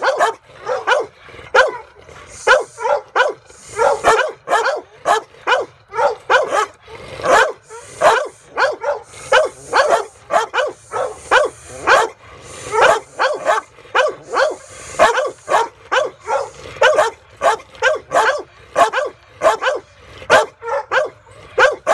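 Large blue-coated bulldog barking over and over, about two barks a second, with only brief breaks.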